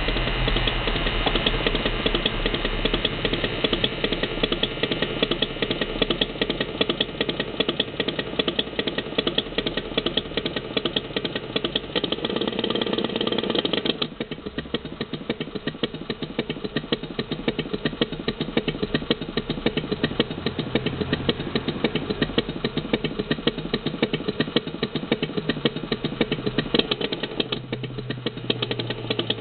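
Recorded Harley-Davidson Panhead V-twin engine sound played through the small speaker of a Marushin Sound Effector in a 1/6-scale model. The engine runs at a higher, busier pace, then settles to a quieter, steady idle about halfway through.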